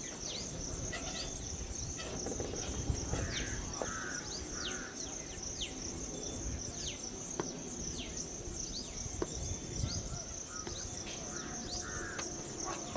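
Outdoor ambience: a steady high-pitched insect drone with many short downward-sweeping bird calls, over a low rumble.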